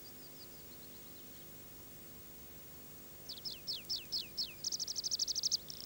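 Tree pipit singing: faint falling chirps at first, then from about three seconds in a run of six clear downslurred notes that breaks into a fast trill, with a second, buzzier trill at the end.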